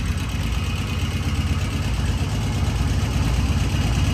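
Norton Commando Interstate's parallel-twin engine idling steadily with an even low beat, through new mufflers, its idle freshly turned down.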